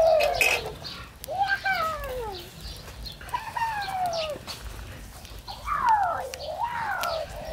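Chickens calling: about four drawn-out calls, each falling in pitch.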